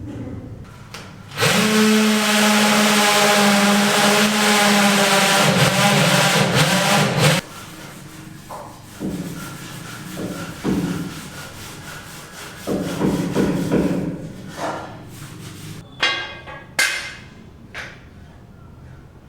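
A power tool runs steadily at full speed for about six seconds, then stops. Several shorter, quieter bursts of rubbing or scraping follow.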